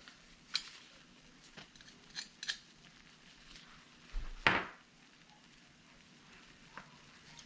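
Fresh garlic being handled with a metal garlic press: a few light clicks, then one short, louder crunch about four and a half seconds in.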